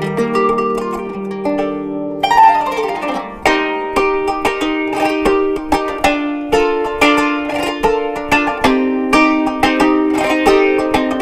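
Kanun, the Turkish plucked zither, playing quick melodic runs of plucked notes, with a fast descending sweep across the strings about two seconds in.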